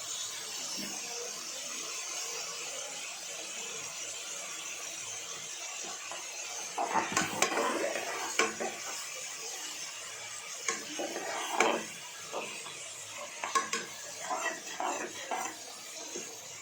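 Chopped onions sizzling in hot oil in a pan, with a spoon scraping and clanking against the pan in irregular strokes as they are stirred, starting about seven seconds in.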